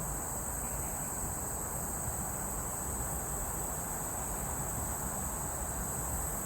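Crickets calling in a steady, unbroken high-pitched chorus, with a low even rumble underneath.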